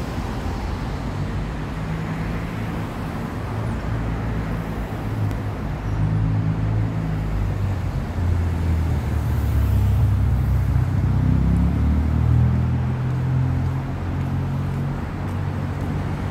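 Street traffic noise: a low engine hum from passing motor vehicles that grows louder about halfway through and eases off again near the end.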